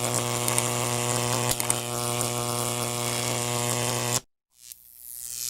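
Electric buzzing sound effect: a steady hum with crackling, cutting off suddenly about four seconds in. After a brief silence a second electric buzz swells up near the end.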